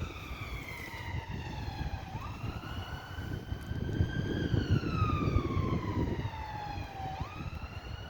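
Ambulance siren sounding in a slow wail, its pitch rising and falling in long sweeps about every five seconds. A low traffic rumble grows louder about halfway through as a vehicle passes.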